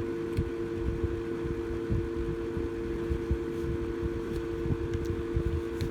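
Electric fan running steadily on low speed, powered through a small battery inverter: a steady two-tone hum over a rough, fluttering rush of air.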